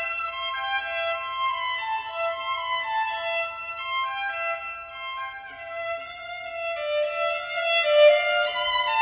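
Background music: a violin playing a melody, one note after another.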